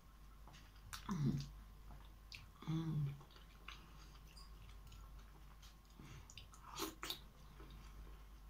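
A person biting into and chewing a fresh tomato, with soft wet clicks and crackles of chewing throughout. Two short vocal sounds come about one and three seconds in, and a sharper click near the end.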